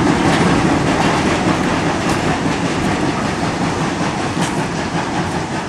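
A train's wagons rolling past, their wheels clicking over the rail joints in a steady clatter that eases off slightly.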